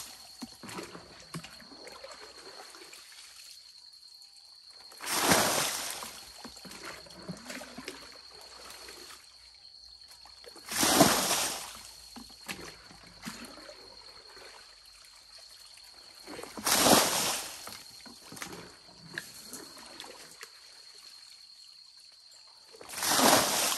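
A white plastic bucket of water tipped out onto the ground four times, about every six seconds, each a brief splashing pour, as a spring's pit is bailed out by hand.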